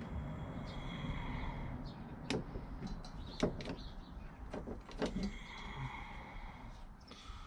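A handful of sharp knocks and clicks, a second or so apart, over a faint low rumble.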